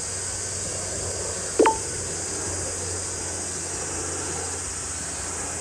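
A putter strikes a golf ball once on the green, a single sharp click with a brief ring about a second and a half in, over a steady high hiss.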